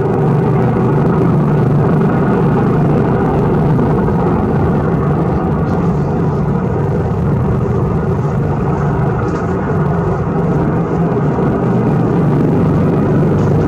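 Coastguard search-and-rescue helicopter hovering overhead during a winch rescue, its engines and rotor giving a loud, steady drone that does not change.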